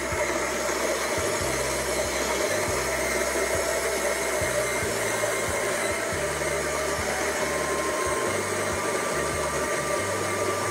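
Electric coffee grinder running steadily, grinding coffee beans at a fine espresso setting as the grounds fall into its clear catch container.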